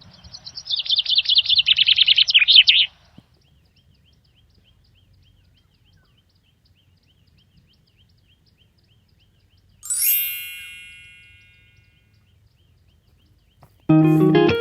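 Birdsong: a rapid, loud warbling phrase for the first three seconds, then faint chirps repeating about twice a second. About ten seconds in comes a single bright chime that rings out and fades over about two seconds. Guitar music starts just before the end.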